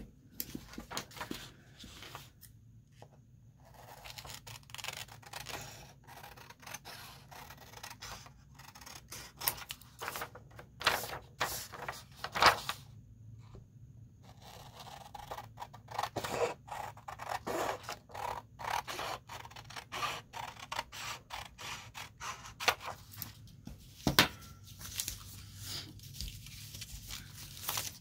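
Large pair of scissors cutting printed paper into strips: a run of irregular snips, with paper rustling and sliding between the cuts.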